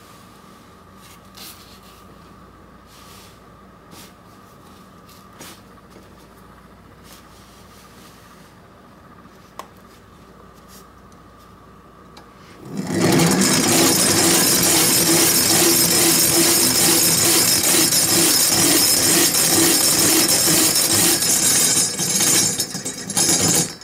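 Circa-1890 hand-crank generator cranked fast: its large gear wheel and the dynamo spin up with a loud, even whir over a steady hum, starting suddenly a little past halfway. Before that, only a few small handling clicks; near the end the whir wavers and drops as the cranking slows.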